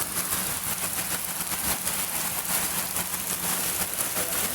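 Heavy rain pouring down, a dense steady hiss of water with many fine drop ticks, over a faint steady low hum.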